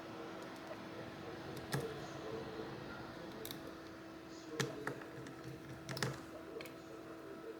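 A few light, scattered clicks and taps as a tiny 000 Phillips screwdriver and small screws meet a phone's metal shield and plastic frame during reassembly, over a steady low hum.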